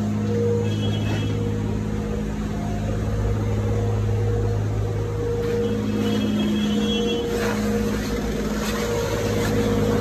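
A machine engine or motor running at a steady speed, giving a continuous low hum with a few fixed tones. Faint short high tones come in about a second in and again around six seconds.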